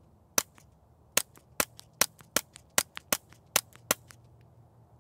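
Suppressed .22 LR pistol fired rapidly with CCI standard-velocity rounds: nine sharp, quiet cracks, about two to three a second, with faint action clicks between, stopping about four seconds in as the 10-round string ends.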